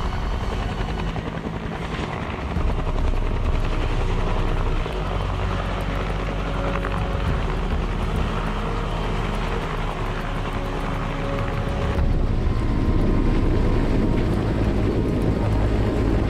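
Firefighting helicopter hovering low over water with its rotor and turbine running steadily while it fills a slung water bucket. About twelve seconds in, the sound changes abruptly to a louder, closer rotor and engine noise heard from on board.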